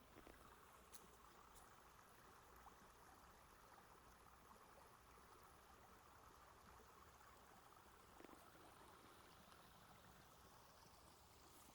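Faint, steady rush of a stream's flowing water, with a few soft ticks.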